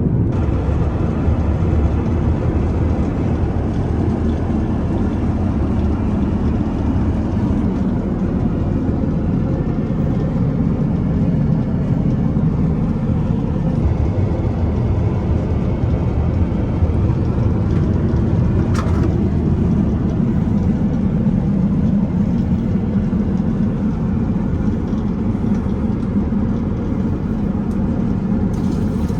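Steady low rumble of cabin noise inside an Airbus A350-900, with a brief faint click about nineteen seconds in.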